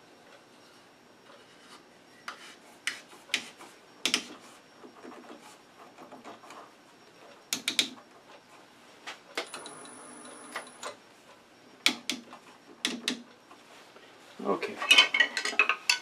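A threaded wooden box body screwed by hand into a threaded pine jam chuck on a stopped lathe: scattered knocks and clicks with wood rubbing on wood. There is a denser stretch of rubbing and handling near the end.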